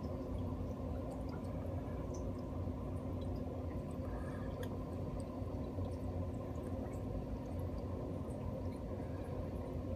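Steady low hum with faint, scattered ticks and drips of water over it.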